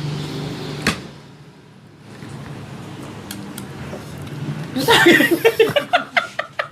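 Mostly people's voices: a low murmur and a single sharp click about a second in, then loud, quickly changing voices near the end.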